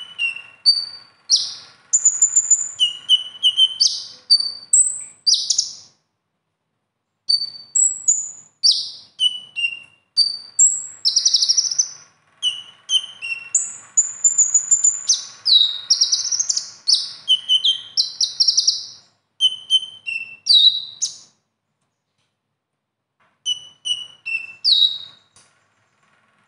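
Male Van Hasselt's sunbird (konin, kolibri ninja) singing a fast, varied run of high chirps, whistled notes and short trills. The song is packed with imitated phrases (isian). It comes in bursts, broken twice by pauses of about two seconds.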